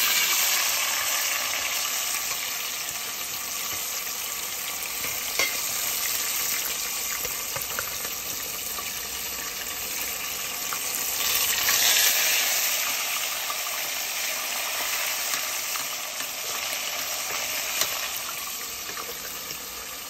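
Whitefish pieces dredged in flour sizzling in hot oil in a deep stainless steel pot: a steady frying hiss that swells louder for a moment about halfway through, with a few light clicks.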